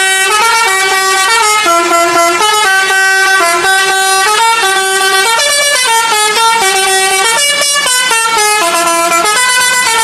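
Telolet musical horn on a passing bus, playing a tune of stepped notes, each held for a fraction of a second.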